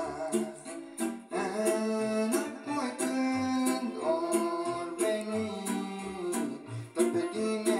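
A man singing a Romanian folk song into a microphone over a backing track of plucked strings and a steady beat.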